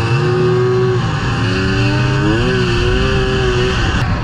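Snowmobile engine running at high revs, heard from the rider's seat over a steady rush of wind and snow. The pitch climbs and holds, rises again about two seconds in, then drops off just before the end.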